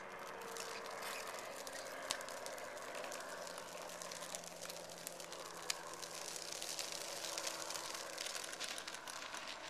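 Hard plastic tricycle wheels rolling over rough asphalt, a steady rattling crackle with scattered small clicks and two sharper clicks, about two seconds and five and a half seconds in.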